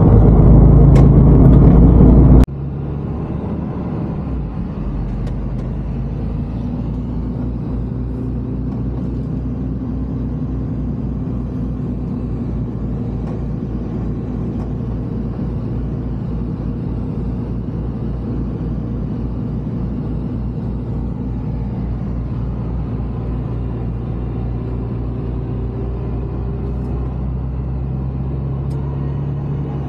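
Heavy truck's engine and road noise heard from inside the cab while driving: a steady low drone. For the first couple of seconds a much louder noise covers it, then cuts off suddenly.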